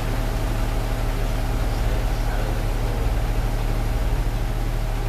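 Steady low engine and road rumble heard from inside a trolley-style bus's cabin as it drives slowly along.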